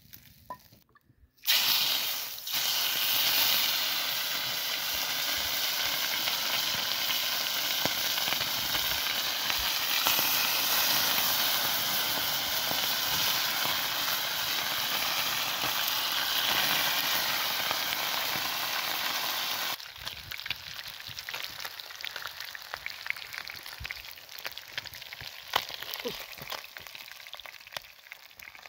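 Trout frying in oil in a small pan over an open wood fire: a loud, steady sizzle starts suddenly about a second and a half in. Near 20 s it gives way to a quieter sizzle scattered with sharp pops and crackles.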